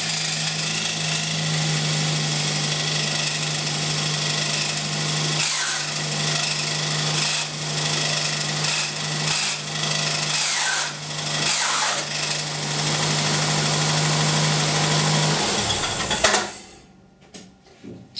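Turbocharged swap engine in a Daihatsu Cuore idling steadily with a loud mechanical noise over it. It is switched off about sixteen seconds in. This is the recurring engine noise that repeated engine removals and repairs have not cured.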